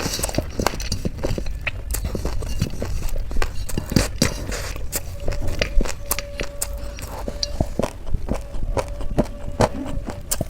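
Close-miked eating: chewing and crunching of crisp Indian street snacks, with many irregular crackles and clicks.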